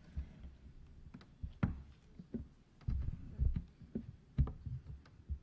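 Microphone handling noise: irregular low thumps and sharp knocks as table microphones are picked up and moved.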